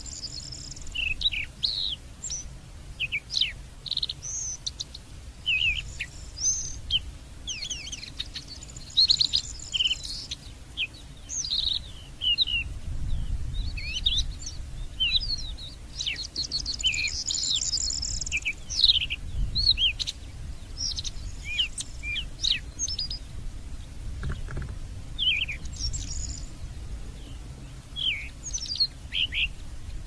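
A small songbird singing a long, varied run of short, quick chirps, trills and sweeping notes, with a faint low rumble underneath.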